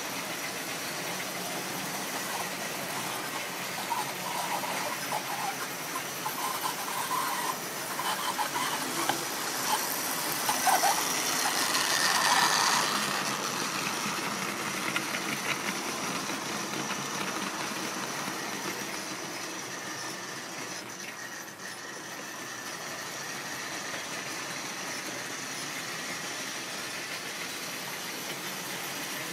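Tri-ang model train of green wagons running past on the track: a rattling clatter of wheels on rails that builds up, is loudest about halfway through, then fades away, over a steady hiss.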